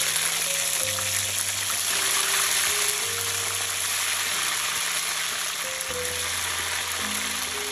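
Chicken pieces deep-frying in hot oil: a loud, steady sizzle that began just as the pieces went in. Soft background music plays under it.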